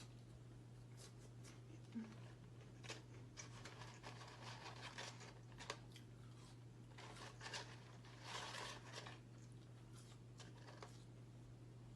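Faint scattered crinkling, rustling and clicks of fast-food paper packaging being handled while eating, busiest in the middle stretch, over a steady low hum.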